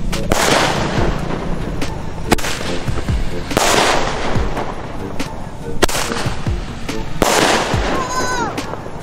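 Roman candle firework shooting stars into the sky: a sharp bang every one to two seconds, each followed by a hiss of about a second as the star flies and bursts into sparks.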